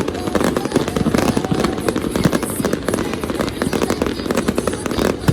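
Fireworks going off in rapid succession: a dense, continuous run of sharp cracks and bangs.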